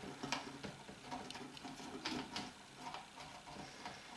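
Small clicks, taps and scrapes of thin boiled wooden sticks being pushed and fitted by hand into a wooden bending jig, with a few sharper clicks near the start and twice about two seconds in.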